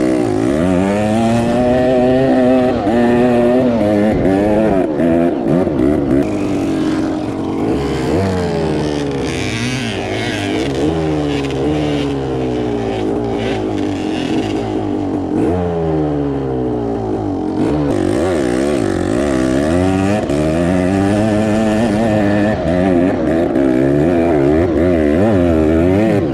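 A close, loud engine revving up and down repeatedly, its pitch rising and falling over and over.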